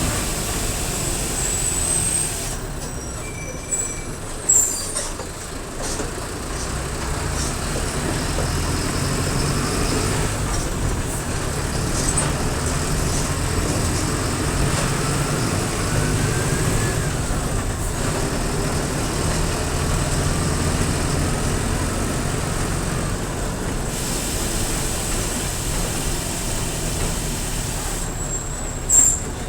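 Mercedes-Benz OF-1722M bus's diesel engine running as the bus drives, with a whistle that rises and falls in pitch as it pulls. There are two short sharp bursts, one about four seconds in and one near the end.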